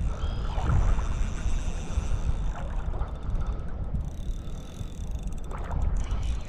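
Wind buffeting the microphone in a steady low rumble, over shallow water lapping.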